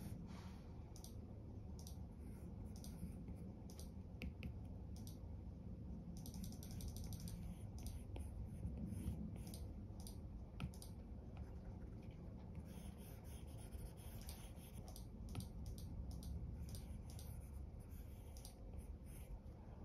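Apple Pencil's plastic tip tapping and scratching across an iPad's glass screen as sketch strokes are drawn: scattered light ticks and short scrapes, in quick runs about a third and two-thirds of the way through, over a low steady hum.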